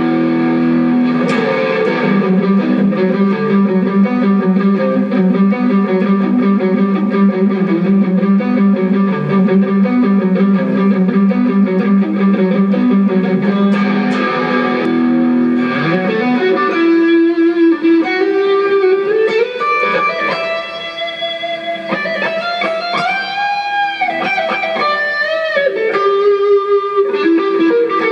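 Electric guitar played through a Cuvave Cube Baby multi-effects pedal for a sound test. For the first half, held notes ring out with long sustain. Then it moves to a single-note lead melody with string bends.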